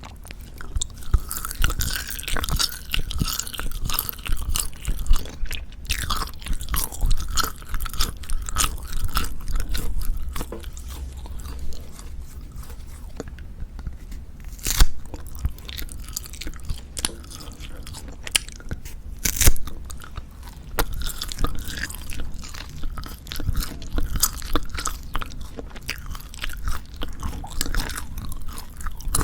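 Close-miked chewing of Jeju black pork jerky: continual irregular smacking and tearing of the dried meat, with a couple of sharper loud bites partway through.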